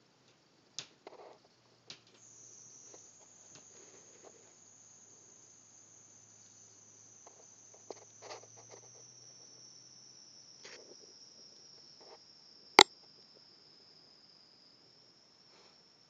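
Scattered faint knocks and thumps from the upstairs neighbour's flat, heard through the ceiling, with one sharp loud bang about three-quarters of the way through. A faint high steady whine comes in about two seconds in and sinks slowly in pitch.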